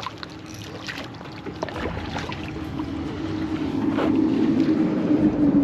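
A motorboat's engine running with a steady drone, growing louder toward the end as the boat comes closer.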